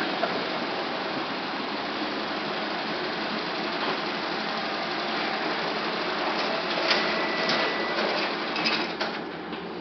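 Konica Minolta Bizhub C552 colour copier running a copy job: the steady whir of its paper feed and print mechanism, with a few clicks and a short high tone about seven seconds in, and the running growing quieter near the end.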